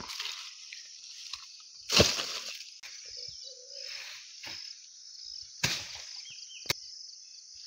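Insects buzzing steadily in the background, broken by a few sharp crackles and thumps, the loudest about two seconds in.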